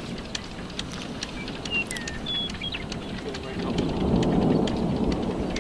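Steady roar and rumble of a thunderstorm, which the chasers hear as hail roar. The rumble swells about three and a half seconds in, with scattered light ticks and a few short high chirps over it.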